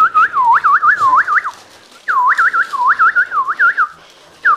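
Someone whistling a fast warbling run of swooping rising-and-falling notes, in three bursts, the second starting about two seconds in and the third near the end.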